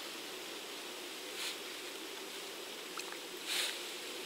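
Two short splashy swishes of a hooked carp being handled in shallow water, about a second and a half in and again about three and a half seconds in, over a faint steady background hum.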